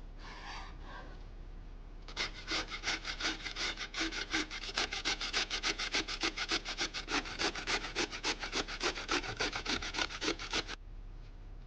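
Vegetable being cut with rapid, regular rasping strokes, about seven a second, starting about two seconds in and stopping shortly before the end.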